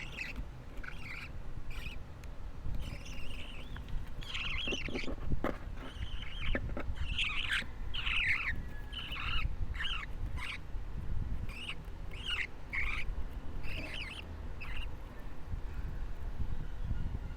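Baby budgerigar (parakeet), about two weeks old, giving a run of short chirping calls, a dozen or so with short gaps between them; the calls stop about fifteen seconds in.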